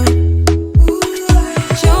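Background music: an Afrobeat-style track with a heavy bass and a steady kick-drum beat.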